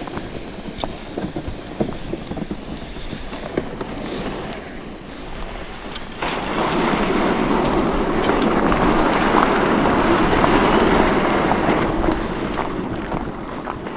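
Ice-fishing sled being towed across a frozen lake: a soft hiss over snow with crunching footsteps, then from about six seconds in a louder steady grinding scrape as the runners cross bare ice, easing off near the end.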